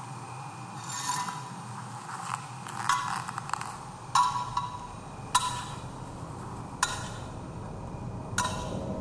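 A series of six sharp knocks, each with a brief ring, spaced irregularly about a second or so apart, over a steady low rumble.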